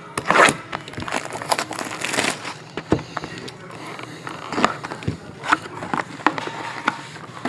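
Cardboard hobby box of trading cards being handled and opened by hand: an irregular run of sharp taps, scrapes and crinkles of cardboard and wrapping.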